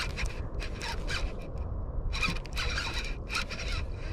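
Low-profile baitcasting reel being cranked steadily to reel in a hooked fish under load: a fast, rough whirring of the reel's gears, with a short pause about halfway through. A low rumble runs underneath.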